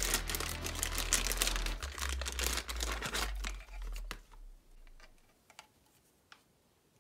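Clear plastic bag crinkling and crackling as a power adapter and its cable are pulled out of it by hand. It stops about four seconds in, leaving a few faint clicks.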